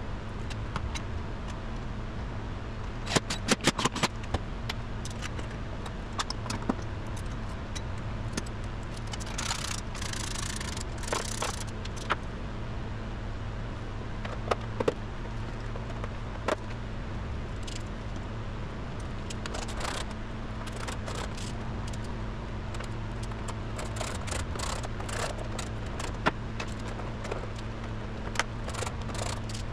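Scattered clicks, clinks and short metallic rattles of hand tools and parts being handled while a motorcycle is reassembled, over a steady low hum. The clicks bunch together about three seconds in and again near ten seconds, where there is a brief rattling hiss.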